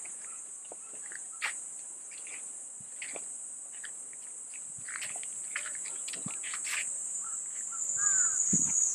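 Insects buzzing in a steady, high continuous drone, with scattered short clicks and a brief gliding call near the end.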